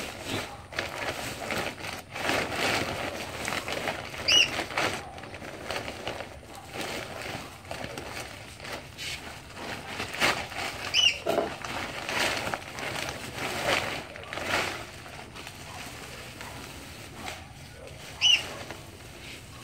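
Irregular rustling and scraping from hands working garden soil, with three short high bird chirps about seven seconds apart.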